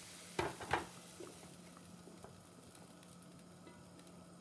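Chicken and vegetables sizzling faintly in a frying pan and dying down, with two sharp knocks of a spatula against the pan about half a second in as the food is scooped out. A faint low hum runs underneath.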